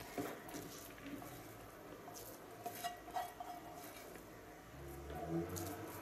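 Faint scraping and light taps of a spoon as cottage cheese is scraped out of a bowl into a plastic mixing bowl.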